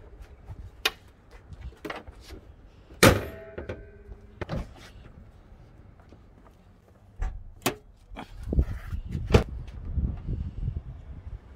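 Car body panels being shut and opened on a Mitsubishi Evo VII: a loud slam with a short metallic ring about three seconds in, as the bonnet comes down, then clicks, clunks and low thumps from the door and the boot lid.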